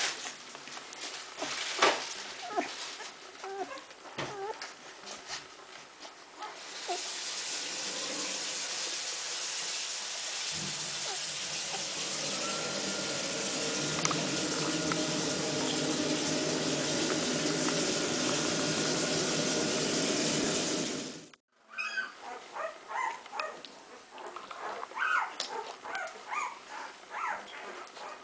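Newborn golden retriever puppies nursing, with small squeaks and whimpers. For about fifteen seconds in the middle a steady rushing hiss covers them, then cuts off suddenly.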